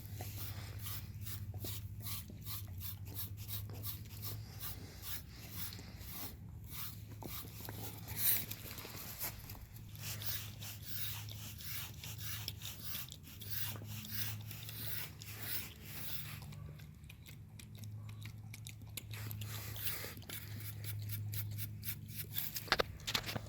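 Rapid, irregular scratchy strokes of a brush through a wolfdog's thick, shedding coat, over a steady low hum.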